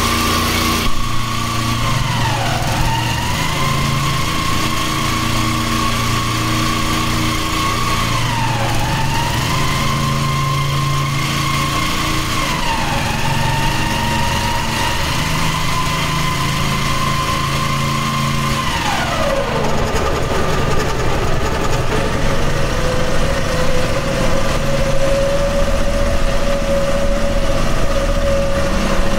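Floodwater rushing over the track bed of a railway tunnel, a loud steady noise, with a steady motor-like whine over it that dips in pitch three times and then drops to a lower steady pitch about two-thirds of the way through.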